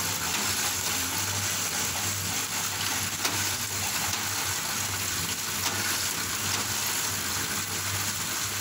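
Bamboo shaving machine running: a steady hiss over a low, even motor hum, with a few faint clicks.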